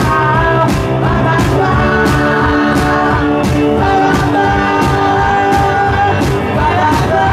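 Live rock band playing loudly: electric guitar, keyboard and drums with singing, over a steady drum beat.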